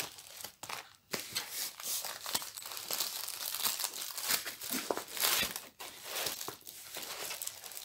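Plastic packaging crinkling and rustling on and off as a diamond painting kit is handled and pulled out of its white bubble envelope.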